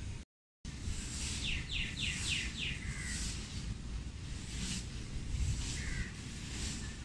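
Birds calling in trees: a quick run of about five short down-slurred notes about a second and a half in, followed by single short calls around three and six seconds, over a steady low rumble of outdoor background noise.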